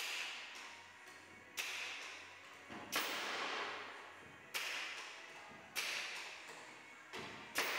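Sharp knocks on wooden parquet blocks as they are fixed into the floor, about one every second and a half, each trailing off with echo in the bare room.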